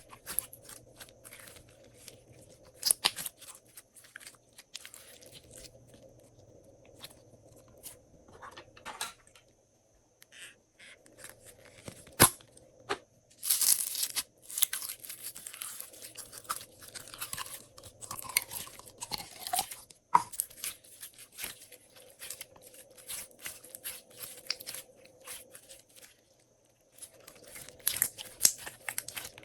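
Hands kneading, folding and stretching glossy slime as things are mixed into it, making sticky crackles, pops and clicks that come in bunches. The crackling is densest in a long stretch midway through.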